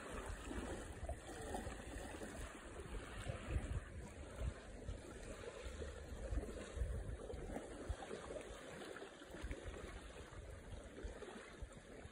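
Small lake waves lapping on a sandy shore, a steady wash of water noise broken by irregular low rumbles of wind on the microphone.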